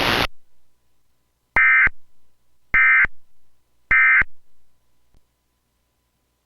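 Emergency Alert System end-of-message code: three short bursts of SAME digital data tones, about a second apart, marking the end of a broadcast weather alert.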